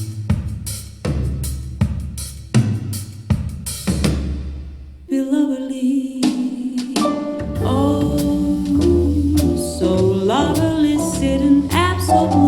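Recorded music played back through bookshelf loudspeakers. A drum kit plays alone for about five seconds, with bass drum and snare hits. Then sustained pitched instrument notes and a bass line come in.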